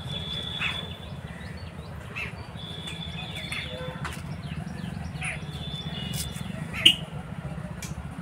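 Small birds chirping again and again, with a few longer high held notes, over a steady low hum. A single sharp sound about seven seconds in is the loudest moment.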